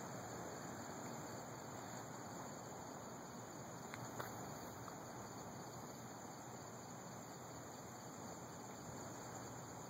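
Steady faint outdoor hiss of background noise, with a couple of faint clicks about four seconds in.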